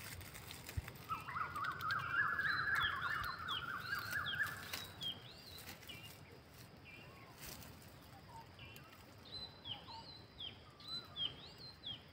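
Wild birds calling: short high chirping notes repeat throughout. A loud, rapid chattering trill starts about a second in and runs for about four seconds.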